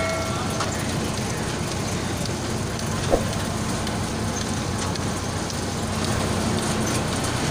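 Citrus washing and grading machine running, oranges rolling over its rotating brush rollers: a steady noisy wash of sound over a low hum, with one sharp knock about three seconds in.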